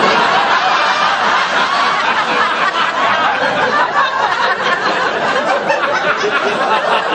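Sitcom studio audience laughing, a loud, sustained crowd laugh with no break.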